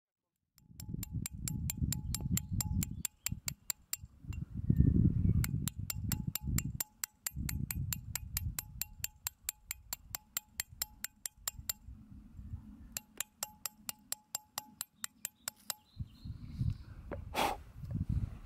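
Hammer striking a steel chisel into a granite runestone: quick, even taps, several a second, each with a light metallic ring, as a carved groove is cut. The tapping breaks off about twelve seconds in, resumes briefly and stops, over a low rumble.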